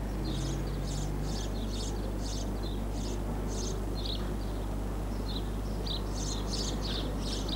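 Small birds chirping, short high chirps repeated irregularly, over a steady low hum.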